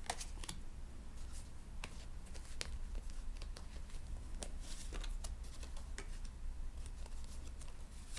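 Tarot cards being shuffled and handled: soft, irregular clicks and snaps of the card edges, a few a second at times.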